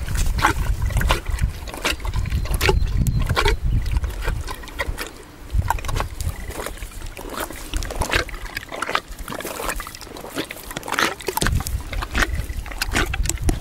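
Horse grazing right at the microphone: grass tearing and crunching as it chews, in many irregular sharp crackles, with stretches of low rumble in the first few seconds and again near the end.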